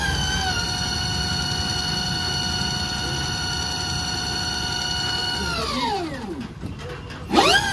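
Ola S1 Pro second-generation electric scooter's motor whining as it drives the rear wheel through the newly fitted belt, the wheel spinning freely off the ground as a test run after the belt change. The steady high whine winds down about five and a half seconds in, then rises again sharply near the end.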